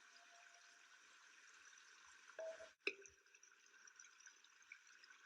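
Near silence with a faint trickle of water, broken by one sharp click a little under three seconds in.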